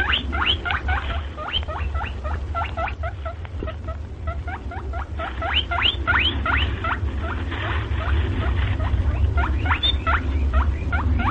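Rabbit squeaking in a quick string of short, high, upward-sliding squeaks, about four or five a second, with a couple of brief lulls. A steady low hum runs underneath.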